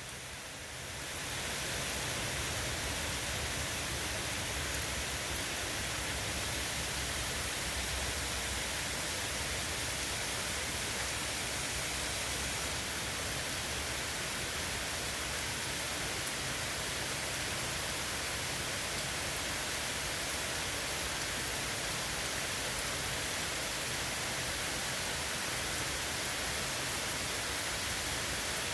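Steady rain falling, an even hiss that swells over the first second or two and then holds without a break.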